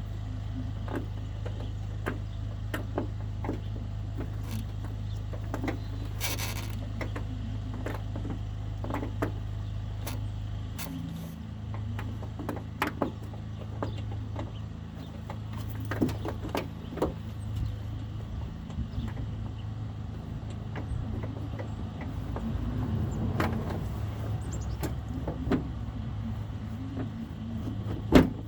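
Scattered plastic clicks and knocks of hands working bulb sockets and a light housing, ending in one sharp loud click, over a steady low hum.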